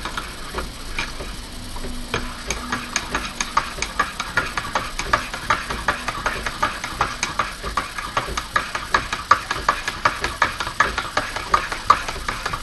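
Teaspoon stirring sugar into a cup of coffee, clinking against the cup in a quick, regular rhythm of about three to four clinks a second.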